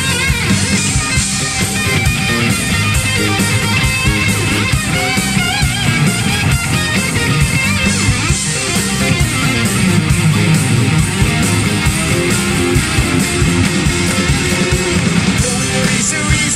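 Live rock band playing loudly through a PA, electric guitar to the fore over bass, drums and keyboards, its notes wavering and bending.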